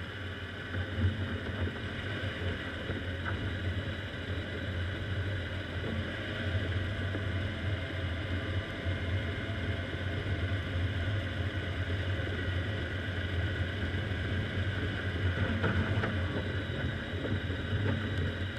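Car driving on an icy, snow-covered road: steady engine and tyre rumble with a faint whine above it.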